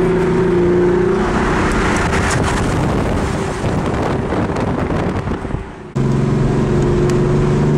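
Car engine droning steadily at highway cruising speed, heard from inside the car, under road and wind noise. The wind noise grows in the middle, then the sound cuts abruptly about six seconds in to another steady engine drone.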